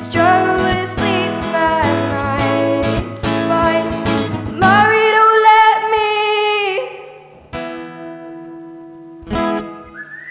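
A girl singing solo while strumming an acoustic guitar. She holds one long note, the voice stops about two-thirds of the way through, and a couple of last strums ring out near the end.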